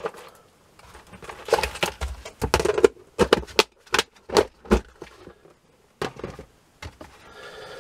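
Small metal radio chassis parts (valve holders, brackets, wiring) clinking and rattling against each other in a plastic tub as a hand stirs them. A few separate knocks follow as the tub is lidded and moved.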